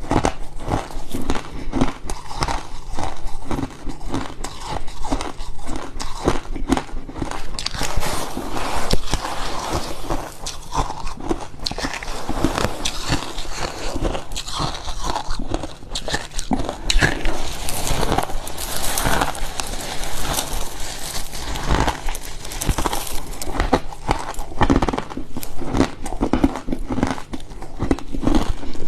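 Freezer frost being bitten and chewed: a continuous, irregular run of crunches and crackles.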